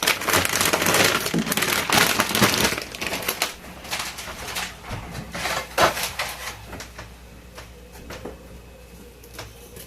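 Frozen-food plastic packaging crinkling and rustling as items are rummaged through in a chest freezer, dense for the first few seconds, then scattered clicks and knocks of frozen packages being moved.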